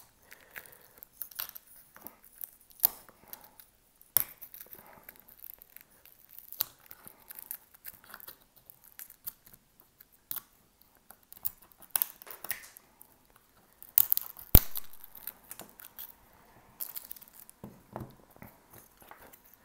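Irregular sharp clicks, snaps and short scrapes of a tool prying and chipping shattered back glass off an iPhone 13, with the plastic film over the glass crinkling.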